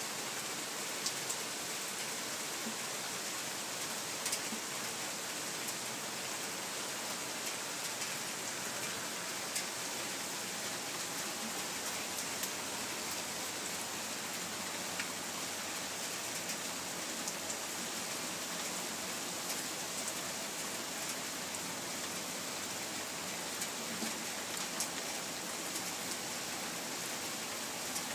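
Steady rain falling: an even hiss, with scattered sharper ticks of drops striking close by.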